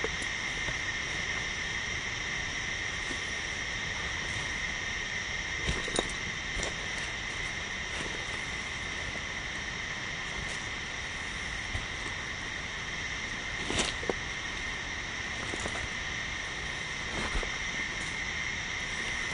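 Steady, high-pitched drone of a rainforest insect chorus, with a few footsteps crunching on leaf litter.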